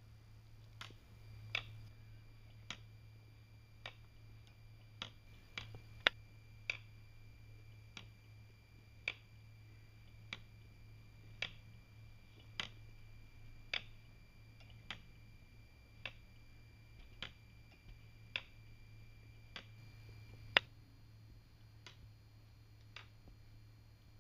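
Weight-driven wooden escapement ticking: its pallets catch the teeth of the escape wheel with a sharp click about once a second, in a mostly even beat. A faint steady hum runs underneath.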